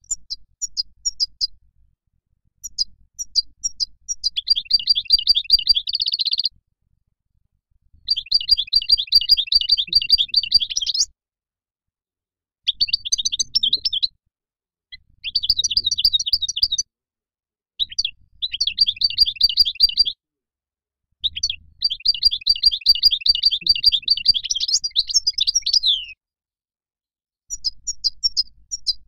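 European goldfinch singing: about eight high, fast phrases of twittering notes and rapid trills, each one to five seconds long, with pauses of one to two seconds between them.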